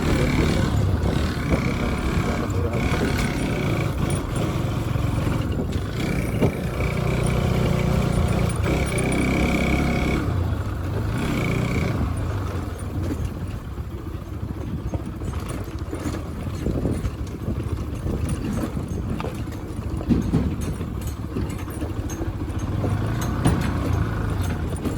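Riding noise from a motorcycle: the engine running under a steady rush of wind and road noise on a helmet-mounted phone microphone, with a thin whine that comes and goes in the first half.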